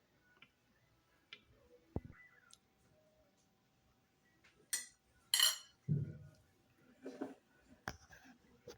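Cutlery and a plate being handled, with scattered clinks and knocks. The loudest is a short scraping burst about halfway through.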